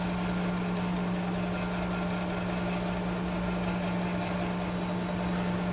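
OD (cylindrical) grinder running, its grinding wheel taking a heavy roughing cut along a steel part turning between centers under flood coolant. It is a steady hum with a constant hiss of the wheel in the cut.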